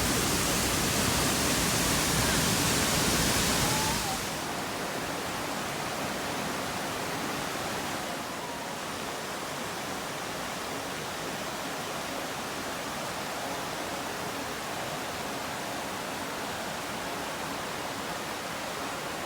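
Waterfall rushing as a steady roar of falling water. It is louder at first and drops off sharply about four seconds in, then eases slightly again a few seconds later.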